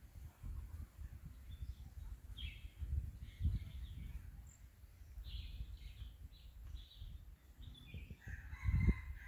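Bird calls: a string of short high chirps, then one longer call with several pitch layers near the end, over a low rumble.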